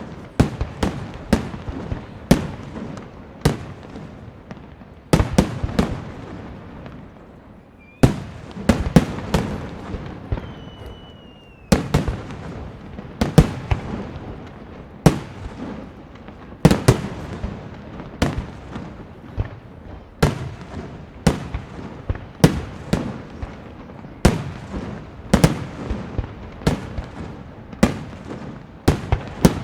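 Aerial fireworks shells bursting in steady succession: sharp bangs about one or two a second, each with an echoing tail. There is a short lull about eight seconds in and a faint whistling tone around ten seconds.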